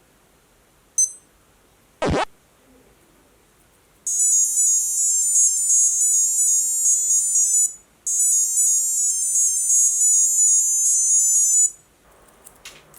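Timex T80 digital wristwatch's piezo buzzer: a single short beep about a second in and a brief click a second later, then a quick high-pitched beeping melody played twice, each run lasting about three and a half seconds.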